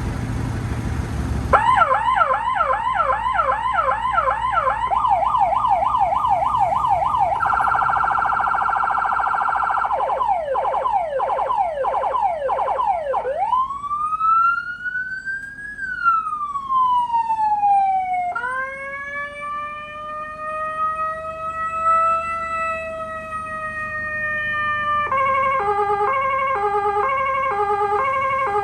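Electronic emergency-vehicle siren stepping through its tones. It starts a second or two in with a fast yelp, then a rapid warble, then a slower yelp, then one long wail rising and falling. After that comes a tone that climbs and then holds, and near the end a two-tone hi-lo alternating about twice a second.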